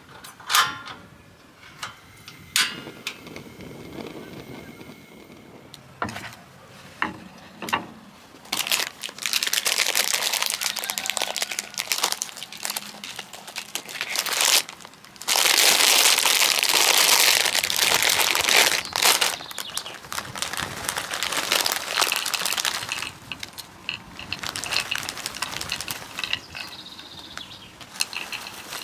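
A plastic snack bag crinkling loudly as it is opened and handled, with mixed nuts rattling into a bamboo tray near the end. Near the start, two sharp clicks from the ignition knob of a portable gas stove.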